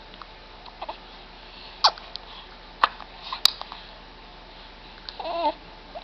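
Three-month-old baby sucking and chewing on his fist, making a few sharp wet mouth clicks and smacks, then a short wavering coo near the end.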